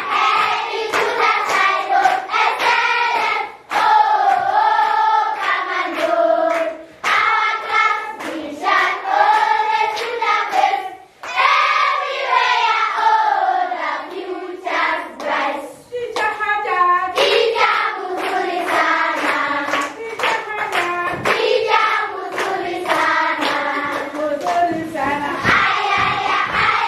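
A class of children singing a song together, clapping their hands along, the singing coming in phrases with short breaks between them.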